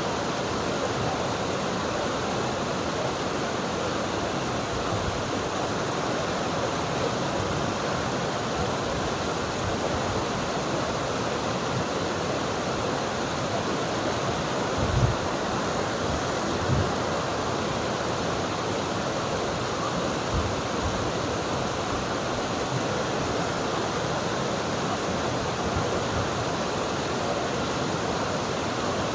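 River water rushing steadily over its bed, an even, unbroken wash of sound. A couple of brief low thumps stand out near the middle.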